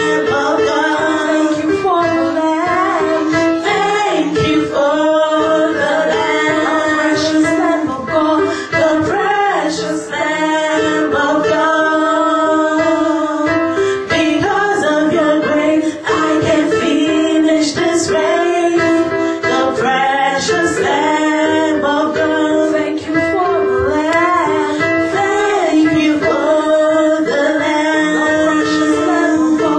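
Gospel praise and worship singing, led by women's voices, over a held instrumental accompaniment.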